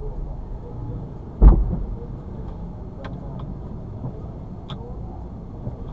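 A single loud bang about a second and a half in: a motorcycle taxi crashing into the back of the car, heard from inside the car. A low steady rumble of the car and traffic runs underneath.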